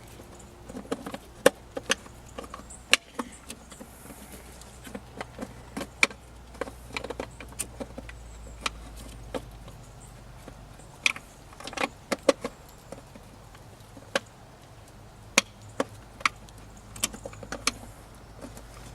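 Scattered plastic clicks, taps and small rattles of taillight bulb sockets being pushed and twisted into the back of a new taillight housing, with a faint steady hum underneath.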